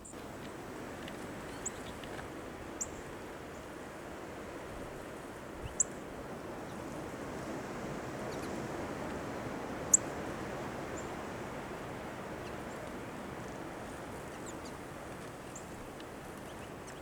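Steady outdoor background noise with a few short, high bird chirps scattered through it, the sharpest about ten seconds in.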